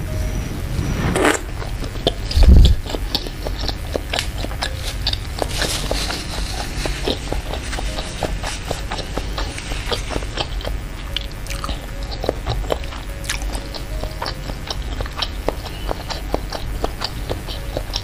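Close-miked biting and chewing of broth-soaked fried tofu, with many small wet clicks and mouth sounds. A loud, dull thump comes about two and a half seconds in.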